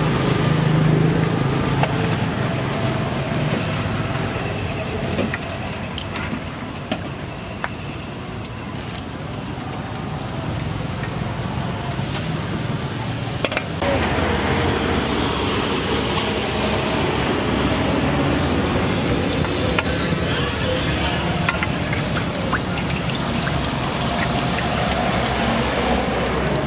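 Street food stall ambience: steady traffic noise and background chatter, with occasional clicks of metal utensils. The background changes and grows a little louder about halfway through.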